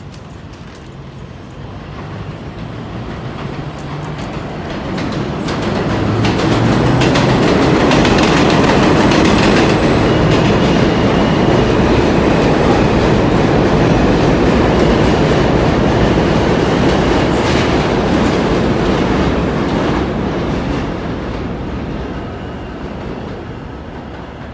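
New York City subway train passing through the station on the elevated J/M line: wheels rumbling and clattering over the rail joints, building to a loud peak for about twelve seconds, then fading away.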